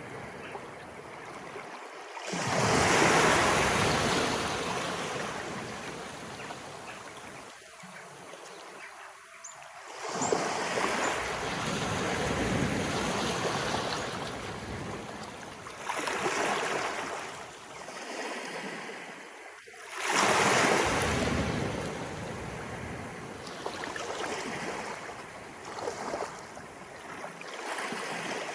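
Sea waves of an incoming tide rolling in and breaking on the shore. Each wave comes as a rush of water that swells and then fades, about four or five times, with the loudest breaking about 2 and 20 seconds in.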